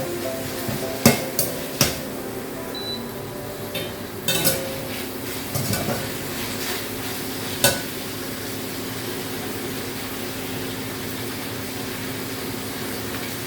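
Food frying in a pan with a steady sizzle, while a utensil stirs and knocks against the pan several times in the first eight seconds.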